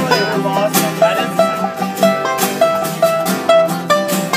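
Acoustic guitar strummed in a quick, steady rhythm, with short held melody notes over the chords.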